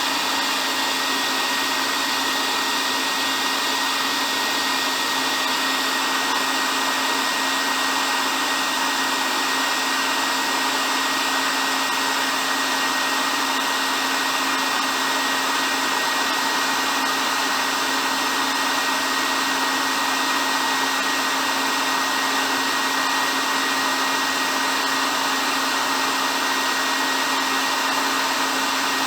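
Hair dryer running continuously at a steady speed: an even whoosh of blown air with a constant motor hum and a thin high whine.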